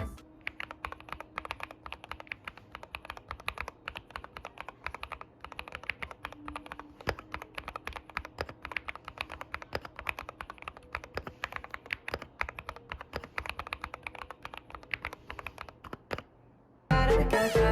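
Fast, continuous typing on a Cidoo V75 mechanical keyboard: a dense, irregular run of keystroke clicks that stops about a second before the end, when music comes in.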